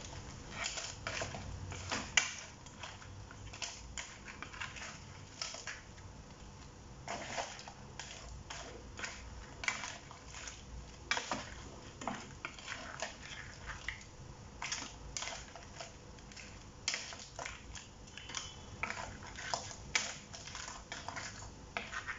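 Crabs and shrimp being tossed in a wok with a wooden spatula: hard shells clack against each other and the pan in irregular knocks, the loudest about two seconds in.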